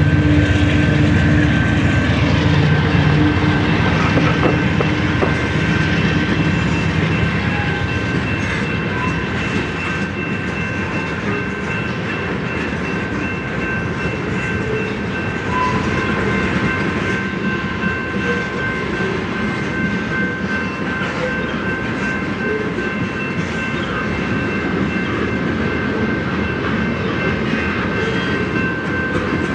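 Freight train passing close by. Locomotive diesel engines are heard in the first several seconds, then the cars roll past with a steady rumble, wheel clicks over rail joints, and a thin, steady high wheel squeal.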